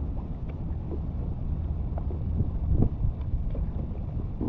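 Wind rumbling steadily on the microphone, with water sloshing against a kayak's hull and a few faint clicks.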